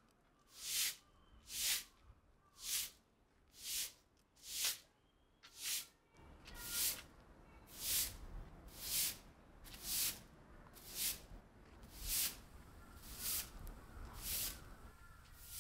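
Steady rhythmic strokes of a broom sweeping the ground, a short hissing swish about once a second. A low steady background noise comes up about six seconds in.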